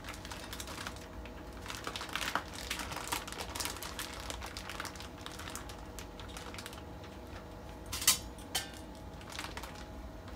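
Thick plastic bag crinkling and rustling as hands work at its knotted, twist-tied top, followed by two sharp clicks about eight seconds in, the first the loudest sound.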